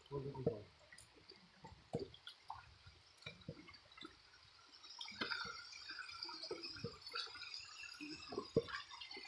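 Water dripping and trickling, with scattered short knocks. About five seconds in, a fuller, steady rush of water joins.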